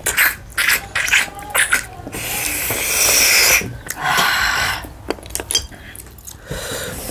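Sucking slurps as ghongi snails are drawn out of their shells by mouth: a few short slurps, then a longer loud draw of about a second and a half and another shorter one.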